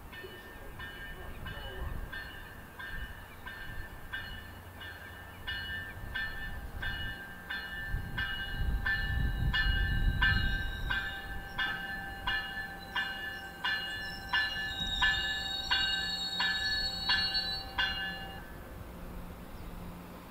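MBTA commuter train's warning bell ringing at a steady pace of roughly two strokes a second, over the low rumble of a train pulling into the station. The bell stops shortly before the end.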